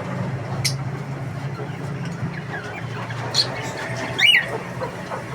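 A few short, sharp bird calls and squawks over a steady low hum, the loudest call a little past four seconds in.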